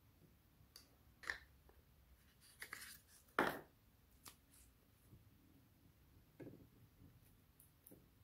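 Glossy slime being pressed and worked by hand: a few sharp sticky pops and clicks, the loudest about three and a half seconds in.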